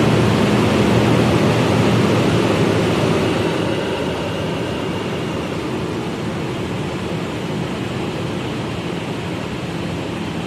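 Lexus / Toyota Land Cruiser 5.7-litre V8 idling steadily just after being started following a fuel filter replacement. It settles slightly quieter a few seconds in.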